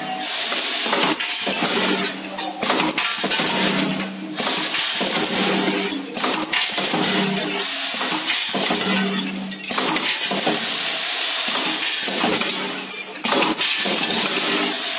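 Small-parts packaging machine running, with a continuous rattle of small hard parts clinking and dropping through it. A mechanical hum comes and goes every couple of seconds.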